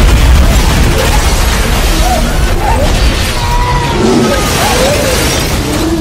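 Movie explosion sound effect: a blast that starts suddenly with a deep boom, then runs on as a loud rumble full of shattering and flying debris.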